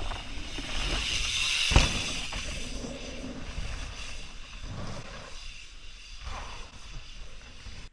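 Mountain bike rolling through a rock garden: tyre noise and rattling, with one hard knock on rock about two seconds in, over wind noise.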